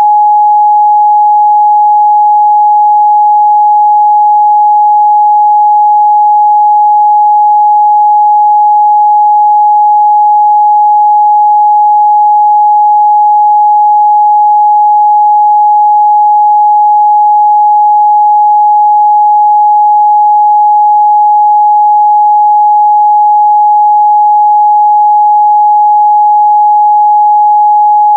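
Continuous 838 Hz sine-wave test tone, a single steady pure tone held at a constant loud level.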